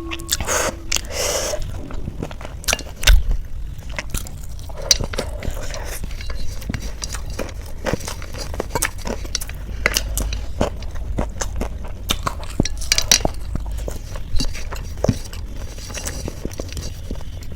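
Close-up eating sounds: crunchy snack food being bitten and chewed, many irregular crunches and clicks, with the occasional clink and scrape of a utensil on a plate, over a steady low hum.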